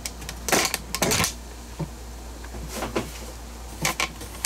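A few short knocks and clatters of things being handled in a kitchen, over a low steady hum.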